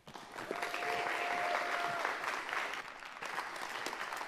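Congregation applauding, strongest for the first two seconds and then thinning out. A single held tone sounds over the clapping for about a second and a half, starting about half a second in.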